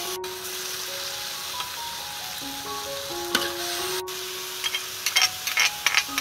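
Shelled river mussels sizzling in oil in a steel wok, with a spatula scraping and clacking against the pan several times in the second half. Background music with a simple melody plays underneath.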